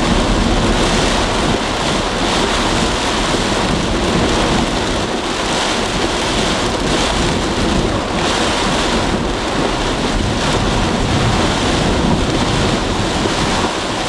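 Heavy wind-driven rain and near-hurricane-force straight-line winds beating on a moving car. A loud, steady rush of rain and wind that swells and eases slightly, with no separate hits standing out.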